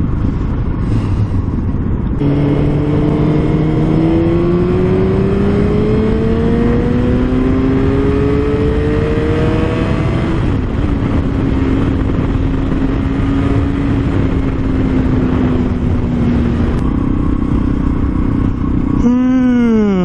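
Motorcycle riding heard through a helmet-mounted microphone: heavy wind rush over the engine. The engine note climbs steadily in pitch for several seconds as the bike accelerates, then holds a steady note and drops away near the end. The sound changes abruptly about two seconds in and again a few seconds before the end.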